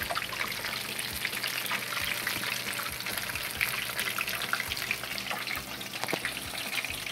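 Kisu, asparagus and cheese spring rolls deep-frying in a shallow pan of oil heated to about 160 °C: a steady, dense crackling sizzle.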